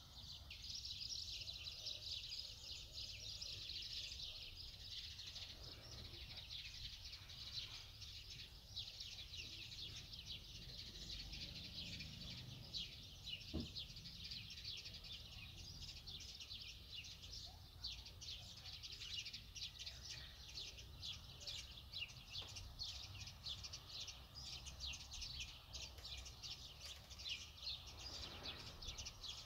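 Many small birds chirping continuously, a dense high-pitched twittering over a faint low background rumble.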